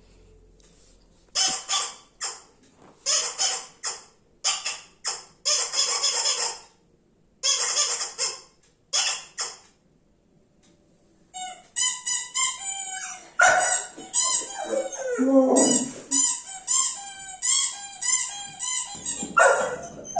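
Squeaking from a pet dog at play: first a string of airy, hissing squeaks, then after a short pause a quick run of high-pitched squeaks that bend in pitch, several a second.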